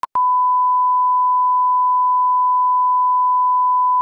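Colour-bars test tone: a steady, high-pitched single-pitch beep held without a break, starting just after a short click.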